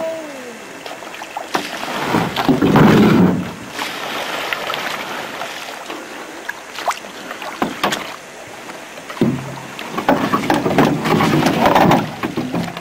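Canoe paddles pulling through the water in surges of splashing and swirling, with scattered sharp knocks from paddles or hulls.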